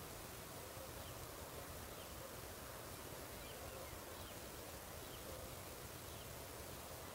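Quiet open-countryside ambience: a faint, even hiss with faint, short, high chirps repeating roughly once a second.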